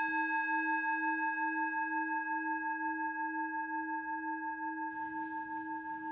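A single struck bell-like tone ringing on and slowly fading, its sound wavering in a steady pulse, used as a transition sound effect.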